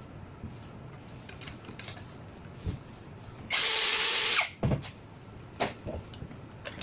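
Small power tool running in one burst of about a second, with a steady high whine, cutting a steel lock-fixing screw to length. Light clicks and handling knocks come before and after.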